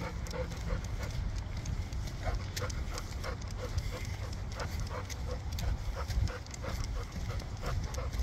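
Footsteps of a walker and a leashed dog on a concrete sidewalk: a steady patter of light ticks, about two to three a second, over a low rumble, with a dog panting.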